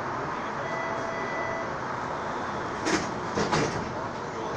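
Steady noise inside a stopped streetcar's cabin, with a faint brief whine early on. A few sharp knocks come about three seconds in.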